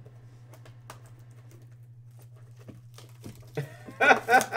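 Faint crinkling and small clicks of a Panini Elements trading-card hobby box being opened by hand, over a low steady hum. A man's voice comes in near the end.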